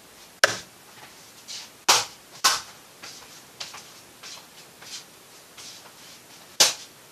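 Someone swatting at a mosquito: four sharp slaps, two of them close together about two seconds in and the last near the end, with fainter swishes of movement between them.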